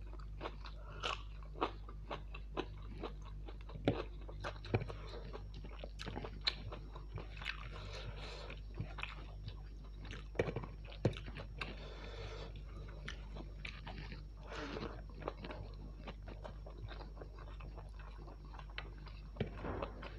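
Close-up mouth sounds of a person eating mutton curry with rice and green chillies: chewing with many short, sharp clicks and crunches, over a steady low hum.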